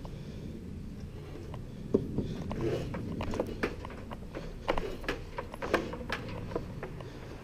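Handling noise on a wooden roof frame: a string of irregular knocks and clicks as an air hose and a pneumatic nail gun clipped to a harness bump and rattle against the timbers. A steady low rumble lies underneath.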